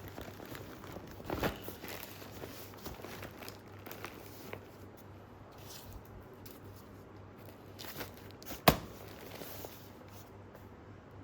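Rustling and handling of a ripstop Robic nylon shoe bag, with scattered small clicks and a single sharp knock about nine seconds in, the loudest sound. The handling dies down near the end.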